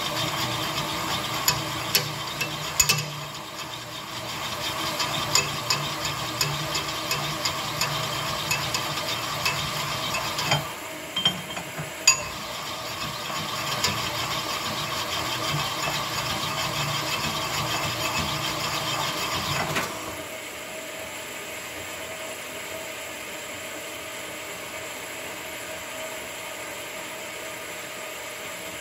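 A Chevy 283 connecting rod being honed on a rod-honing machine's spinning diamond mandrel: a steady grinding with frequent sharp clicks as the rod is worked back and forth, roughing the bore in toward size. The grinding dips briefly about ten seconds in and stops about 20 seconds in, leaving a steady lower hum.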